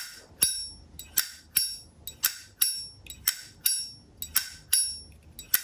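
Brass Zippo lighter from 1974, its hinged lid flipped open and snapped shut again and again: about three sharp metallic clicks a second, each with a short bright ring.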